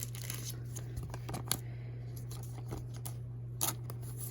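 Trading cards and their packaging being handled: light rustling and a few short clicks, over a steady low electrical hum.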